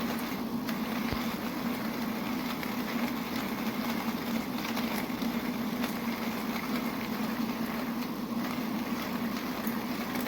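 Manual coffee grinder with conical ceramic burrs being cranked by hand, grinding coffee beans with a steady, continuous grinding noise.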